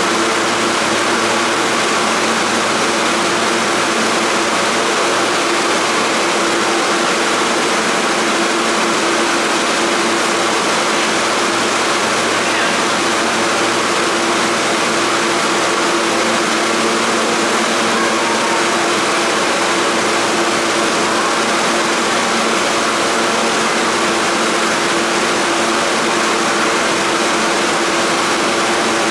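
An R160 subway car stands at the platform with its doors open, its onboard air-conditioning and electrical equipment giving a steady hum with several constant tones in it.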